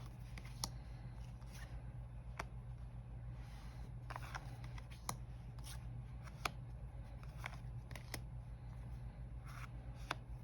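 Tarot cards being handled: about ten sharp, irregularly spaced clicks and soft sliding of card stock, over a steady low hum.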